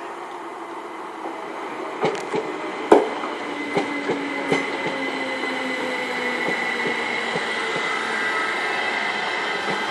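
Class 379 Electrostar electric multiple unit running past, its wheels clacking sharply over rail joints several times in the first half, then settling into a steady rumble with a high whine that grows louder as the coaches pass.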